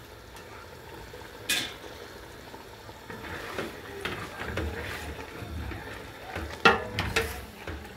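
Wooden spoon stirring molokhia leaves in a stainless steel pot of liquid, with a sharp knock about a second and a half in and two more near the end as the spoon strikes metal.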